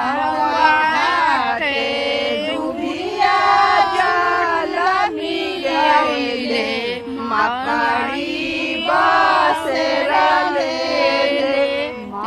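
Women singing a Chhath devotional folk song (Chhath geet), one melodic line in long phrases with sliding notes.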